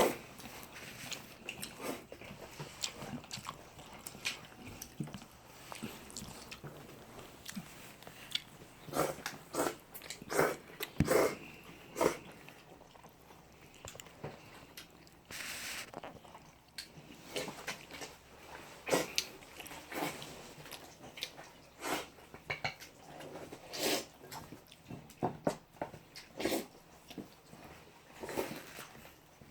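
Eating at a table: scattered clicks and knocks of chopsticks and dishes, with chewing, and one longer hissing sound about fifteen seconds in.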